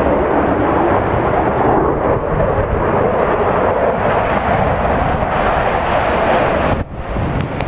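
Loud, steady jet roar of the Thunderbirds' F-16 fighters in flight, dipping briefly near the end.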